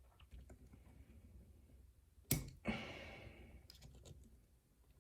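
Small metal clicks and clinks from tools and lock parts as a lock is taken apart, with a sharp metallic clank about two seconds in, then a second one, ringing briefly and fading.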